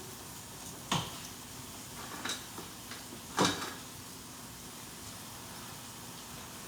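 Three short clatters of kitchen cookware, about a second apart, over a faint steady background.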